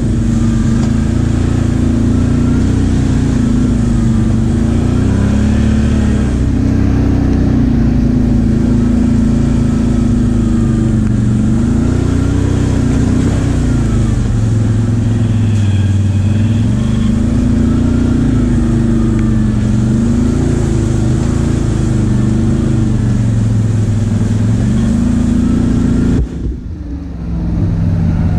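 Can-Am Outlander XMR 570 ATV's V-twin engine running under throttle, its revs rising and falling over and over. Near the end the throttle is shut and the engine drops off suddenly, then picks up again.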